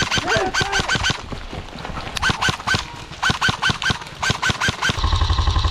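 Airsoft gun firing rapid shots in several bursts, about seven sharp clicks a second, each with a short high ring. A rushing noise follows near the end.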